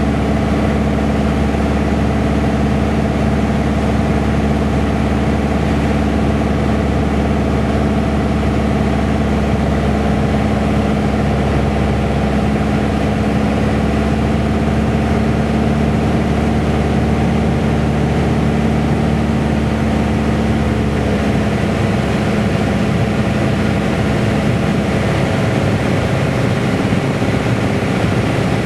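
Light single-engine aircraft's piston engine and propeller heard from inside the cockpit, running steadily on final approach; the engine note changes about three-quarters of the way through.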